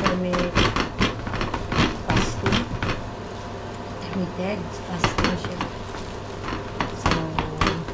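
Knife sawing through the hard crust of a sourdough loaf, a run of crackling, scraping strokes as the blade works back and forth.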